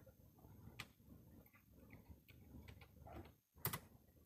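Near silence with a few faint clicks of a computer mouse; the loudest, a quick double click, comes near the end.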